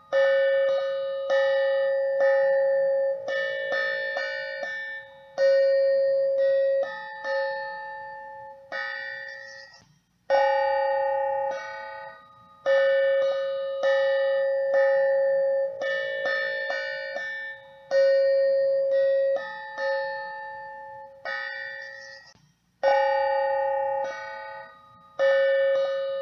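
Background music: a gentle melody of chiming, bell-like notes, each struck and left to ring out, in a short phrase that repeats about every ten seconds.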